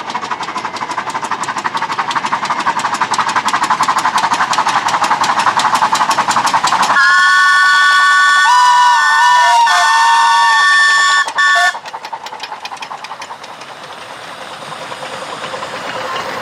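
A miniature steam locomotive running with rapid, regular exhaust beats. About seven seconds in, its steam whistle sounds a chord of several notes for about four seconds, with a brief break just before it stops. A wavering lower note sounds alongside part of it. After that the running beats carry on, quieter.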